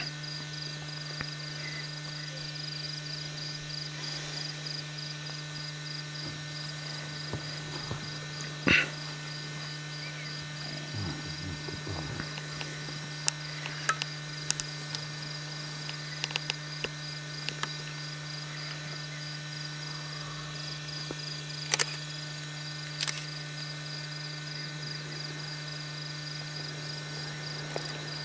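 A steady low electrical hum under a cricket's evenly pulsing high chirping, with a few scattered sharp clicks and knocks.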